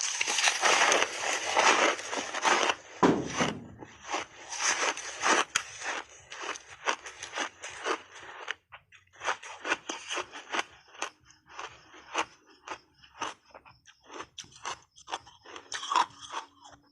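Close-up crunching and chewing of a block of ice: a dense run of crunching for the first few seconds, then separate crisp crunches that thin out and grow quieter as the ice is chewed down.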